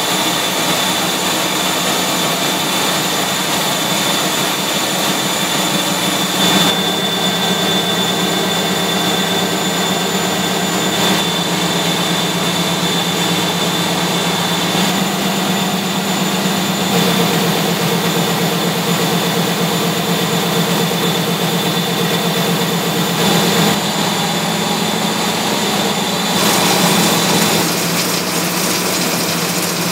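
Loud steady running of a Geoman web-offset newspaper press and its delivery conveyors: a dense mechanical din with a steady high whine and a low hum. The mix changes abruptly several times.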